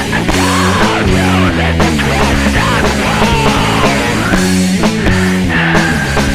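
Heavy, distorted rock music: a band playing guitars and drums, with a high lead line that slides and bends in pitch over steady low chords.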